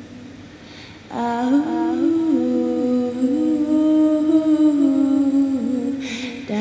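A voice humming a slow, wordless tune in long held notes that step up and down between a few pitches. The first note fades away, and after a short breath about a second in a new, louder phrase begins.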